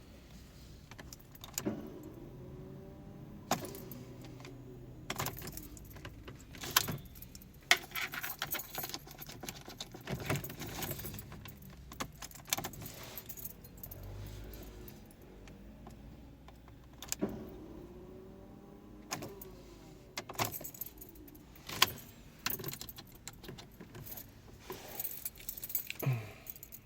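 Keys jangling on a keyring with repeated sharp clicks as the ignition key of a Mercedes-Benz A-Class W168 is turned again and again. The engine does not crank: a no-crank starting fault.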